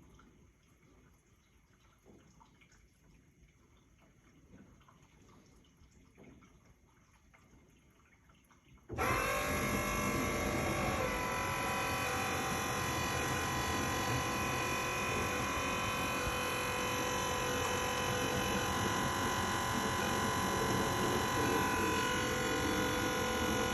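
GE dishwasher: faint water sounds for about nine seconds, then a loud motor noise starts suddenly and runs steadily as a drone with several steady tones, its pitch settling a couple of seconds after it starts. The noise is abnormally loud, and the owner cannot tell where in the machine it comes from.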